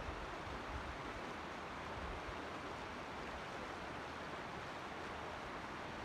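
Steady rush of a mountain creek's flowing water, an even hiss with no changes.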